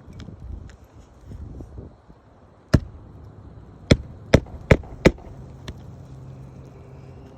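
Five sharp knocks from nailing down a roof shingle: a single strike, then four in quick succession about a second later.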